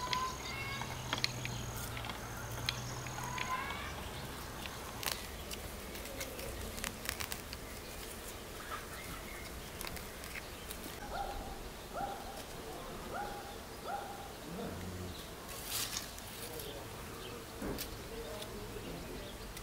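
Outdoor bird calls: assorted small birds chirping, with a run of four short, similar calls about a second apart midway. Scattered sharp clicks throughout, and a low hum for the first few seconds.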